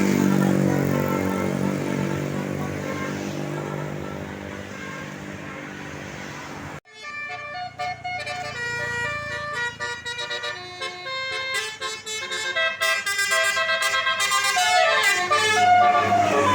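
A bus's multi-tone 'telolet' musical air horn: a held chord that slowly fades, then, after an abrupt cut about seven seconds in, a quick run of changing notes playing a tune.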